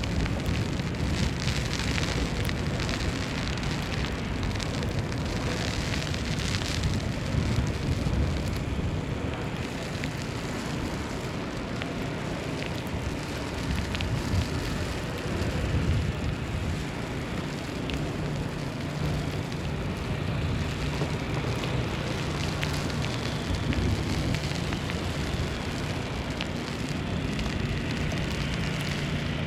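Steady snowstorm street ambience: an even hiss of falling wet snow with low wind rumble, and a low steady hum coming in during the second half.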